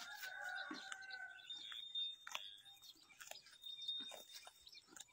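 Charolais cow grazing, a faint, irregular run of short tearing and crunching sounds as it crops and chews grass. Birds chirp in thin high whistles over it, with a louder call in the first second.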